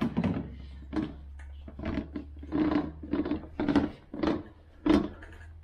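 Irregular clunks, knocks and scrapes of a red wheeled oil drain caddy being handled, its funnel pan and stand pole being set up, over a steady low hum.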